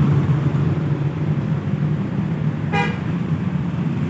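Passing bus and road traffic running steadily, with one short horn toot about three seconds in.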